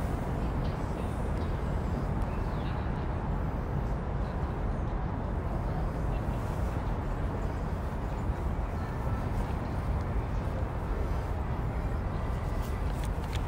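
Steady outdoor city background noise, a low rumble of traffic and wind with no distinct events.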